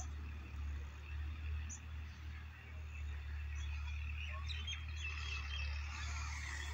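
Small birds chirping, the short high calls growing busier about two-thirds of the way through, over a steady low rumble.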